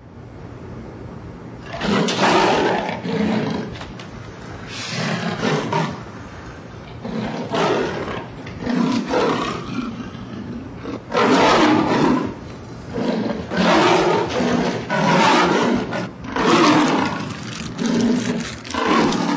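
A domestic cat growling and yowling angrily in repeated bursts of about a second each, as a pug climbs onto it.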